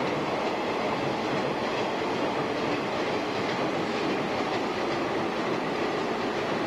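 JNR limited-express electric train running past close by: a steady rolling rumble of its wheels on the rails that holds even throughout.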